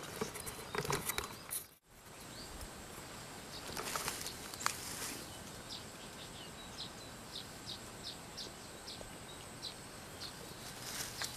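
Quiet outdoor ambience. From about halfway through, a small animal gives short, high chirps at about two a second, with a brief rustle a little before.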